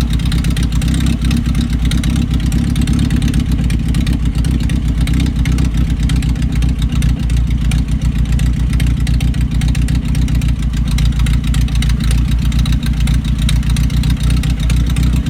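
1982 Datsun wagon's carbureted four-cylinder engine running steadily with an even, low rumble, during work on its idle problem.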